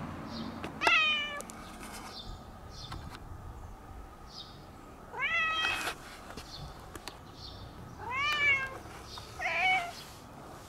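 A cat meowing four times: one call about a second in, one midway and two close together near the end, each a drawn-out meow with rising or falling pitch.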